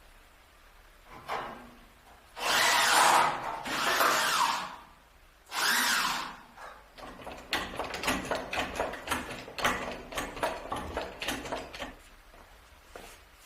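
A power tool runs in three short bursts of about a second each. Then comes a quick, irregular run of knocks and clicks, like tool work on a part, which stops near the end.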